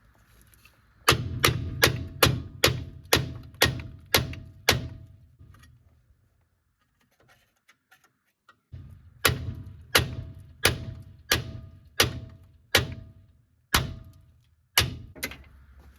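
Hammer blows on steel with a short metallic ring, about two a second, in two runs with a pause of about four seconds between them, beating on a seized front-suspension part of a Nissan Frontier to break it loose.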